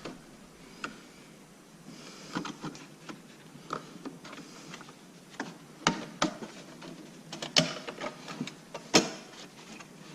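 Handling clicks and taps of a steel bi-metal bandsaw blade as it is worked into the guide rollers of a portable bandsaw, with scattered sharp metal clicks, the loudest a little over halfway through and near the end.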